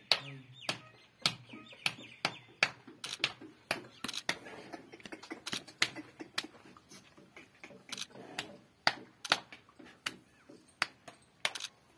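A rapid, irregular series of sharp clicks and ticks, about one to three a second, with faint rustling between them.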